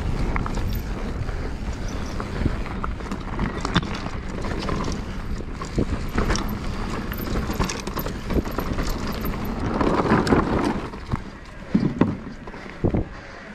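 Mountain bike running down a dirt trail: tyres on dirt and stones and the bike rattling over bumps in many short knocks, with a steady low rumble of wind on the microphone. There are louder jolts about ten and twelve seconds in.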